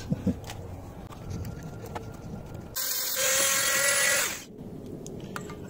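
Small handheld rotary tool with a grinding-stone bit running briefly, a high whine over a grinding hiss, as it takes down brazed filler on the fins of an aluminium cylinder block. It starts about three seconds in and cuts off suddenly after about a second and a half.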